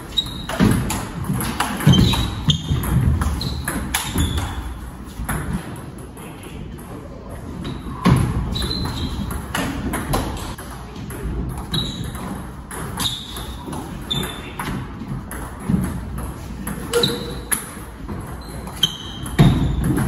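Table tennis rally: the ball clicks sharply off rackets and the table, one hit after another, many bounces ringing with a short high ping. The hits echo in a large hall.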